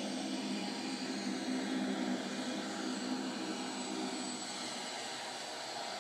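Twin turboprop engines of a Short Skyvan jump plane running as it taxis close by, a steady drone.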